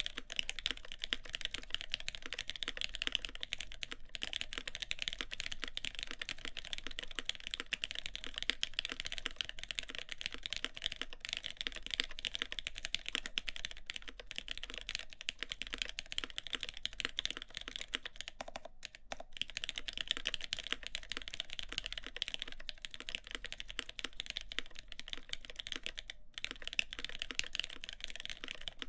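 Continuous fast typing on a CAKE60 mechanical keyboard with an aluminium plate, lubed Gateron X switches and GMK keycaps, a rapid run of keystroke clacks with a couple of brief pauses.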